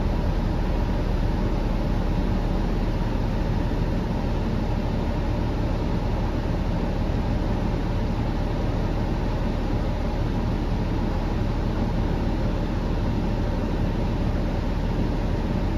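Steady drone of a 2013 Gillig BRT transit bus heard from inside the cabin, its Cummins ISL9 diesel engine running with an even low rumble and no change in pitch.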